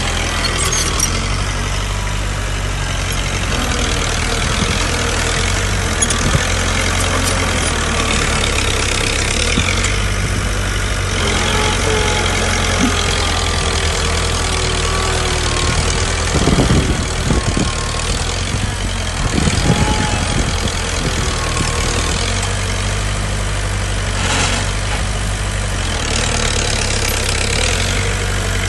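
Heavy diesel engine of earthmoving machinery running steadily at a low, even speed. Two short bursts of rougher, louder clatter come about two-thirds of the way through.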